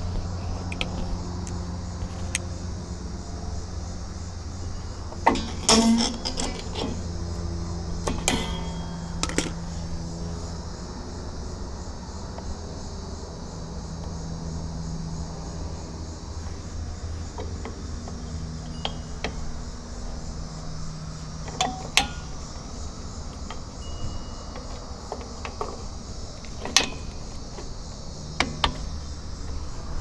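Metal clinks and sharp clicks of rear drum-brake hardware being fitted by hand: the bottom return spring hooked onto the brake shoes and the star-wheel adjuster set in between. The clicks come in a cluster about five seconds in, again around eight and nine seconds, and singly later on, over a steady low hum.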